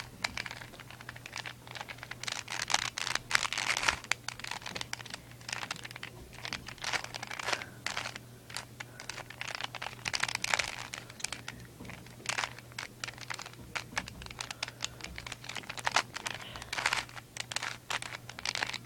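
Plastic Rubik's Cube being twisted by hand: quick, irregular runs of clicking and clacking as its layers turn.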